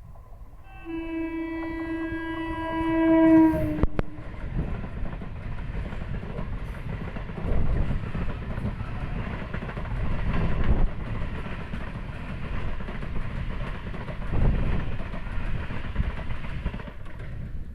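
Indian local electric train sounding a long horn blast for about three seconds, then passing close by. The wheels rumble and clatter steadily on the rails, swelling louder every few seconds, and the sound drops away near the end.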